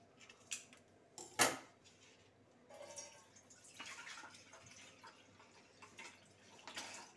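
Milk pouring from a plastic sachet into an empty stainless steel saucepan: a steady splashing stream that starts about three seconds in. A few short clicks come before it.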